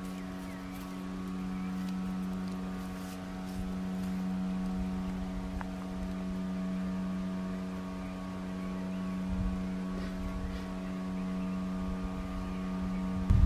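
A steady mechanical hum: a strong low drone with several fainter higher tones above it, holding level without change.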